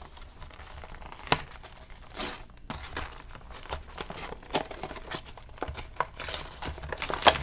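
Cardboard-and-plastic toy blister pack being torn and pried open by hand: crinkling plastic and scattered sharp snaps, with a short rasping tear about two seconds in and busier crackling near the end.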